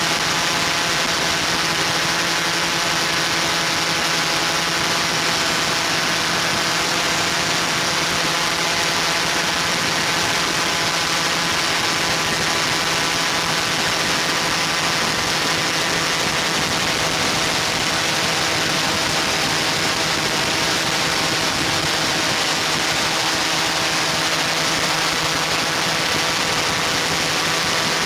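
Multirotor drone's motors and propellers humming steadily at a constant pitch, an even whine with hiss and no change in speed.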